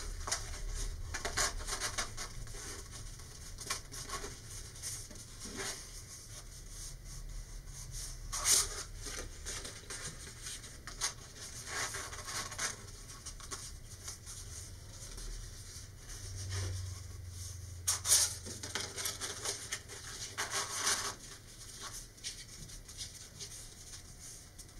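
Paper rustling and rubbing as hands gently curl a cut-out paper rocket shroud over a cutting mat. There are irregular soft rustles, a little louder about 8 and 18 seconds in.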